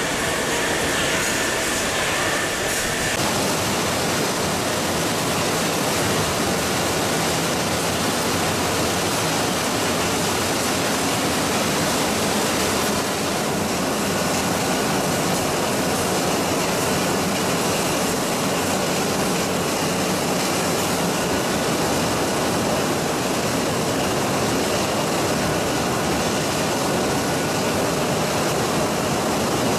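Poultry slaughtering line machinery running: a steady, even roar from the overhead shackle conveyor and processing machines. A faint high whine stops about three seconds in.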